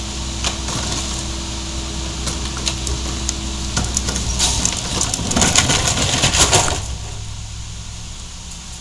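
Mack MR garbage truck's Caterpillar diesel engine running steadily. About four seconds in comes a burst of dense crackling and clattering, lasting about three seconds, which is the loudest part. After it, the engine's tone changes and things quieten.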